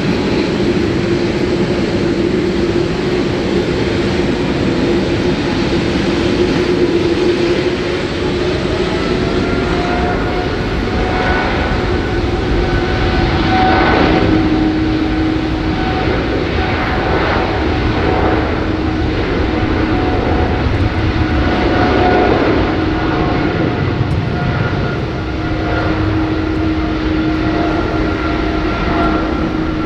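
Airliner engines running, a steady whine over a roar that rises in pitch about eight seconds in and then holds.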